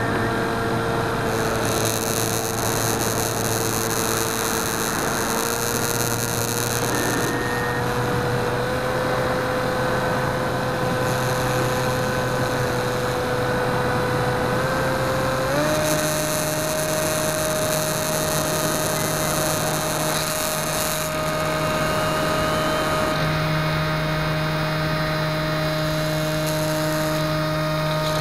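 Electric motor and pusher propeller of a Skywalker 1900 FPV plane whining steadily in flight, heard through the onboard camera over a steady rush of air. The pitch creeps up and then steps up about halfway through.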